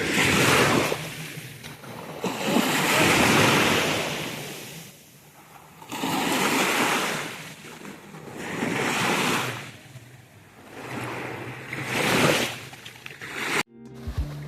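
Sea waves breaking on a beach, the surf swelling and falling back about five times, every two to three seconds, before cutting off suddenly near the end.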